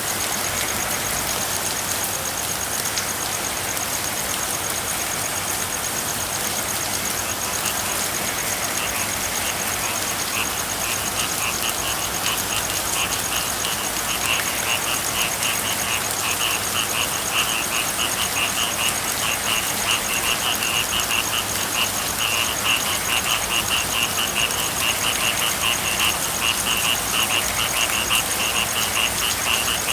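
Steady rain with frogs calling in fast pulsed trills; the frog chorus comes in about eight seconds in and grows louder. A high steady trill runs underneath throughout.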